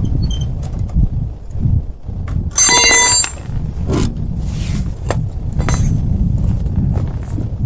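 Metal tool clanks during a tyre change, with a loud metallic ringing sound lasting about half a second about two and a half seconds in. Sharp knocks follow near the end, over a steady wind rumble on the microphone.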